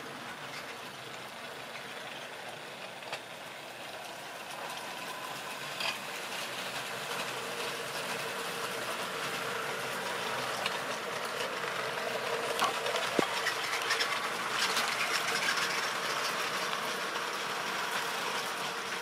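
Model railway train running on the track: a steady electric motor hum with wheel rumble and occasional clicks, growing louder through the middle.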